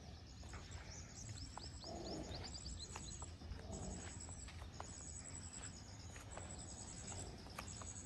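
Small birds chirping, with quick falling notes and high repeated twitters, over scattered light knocks of a horse's hooves.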